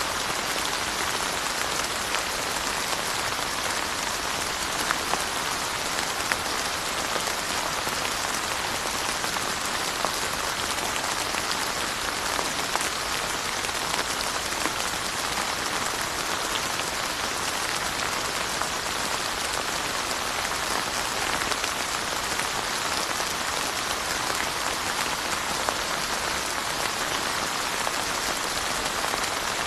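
Steady rain falling on surfaces: an even hiss of rainfall with a dense patter of individual drops hitting.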